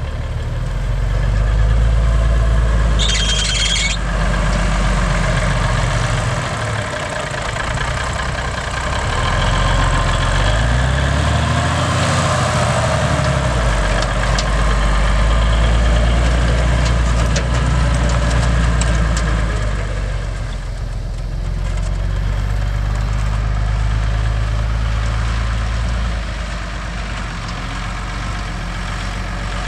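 1982 Ford 9000 service truck's engine running as the truck drives slowly, its pitch rising and falling as it speeds up and slows. A short hiss comes about three seconds in.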